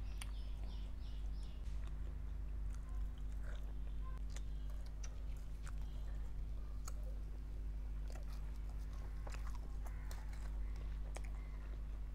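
Close-miked chewing and biting of garlic naan dipped in chicken butter masala: soft wet mouth sounds and scattered small clicks, over a steady low hum.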